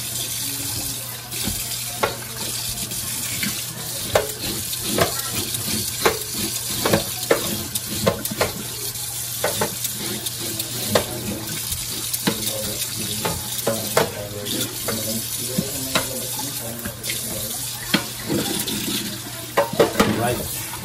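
Kitchen tap running into a stainless steel sink while a walleye is scrubbed under the stream, with frequent short scrapes and knocks of hand and utensil against the fish and the sink.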